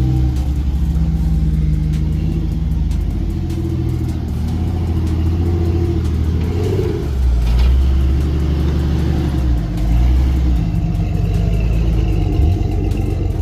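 Off-road 4x4 engine running under load, the revs rising and falling as the vehicle works through the trail, with surges about six and a half and ten seconds in.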